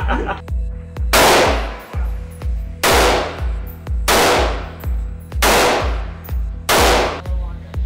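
Five loud gunshots from a short AK-pattern rifle, each ringing out in an indoor range, about one and a half seconds apart. Under them runs background music with a steady low beat.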